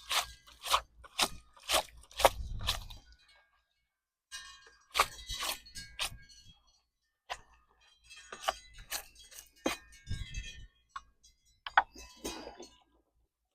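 A run of sharp clicks and knocks, about two a second at first, then after a pause irregular clusters of clinks, like hard objects being handled and set down.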